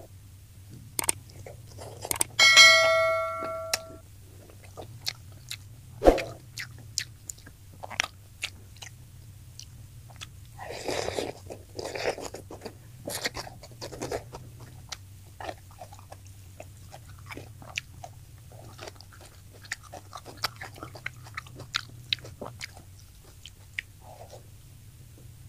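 Close-up eating sounds of fried tilapia: crunching, chewing and biting, with many small clicks and smacks. A ringing metallic clink sounds about two and a half seconds in, like a utensil striking a dish.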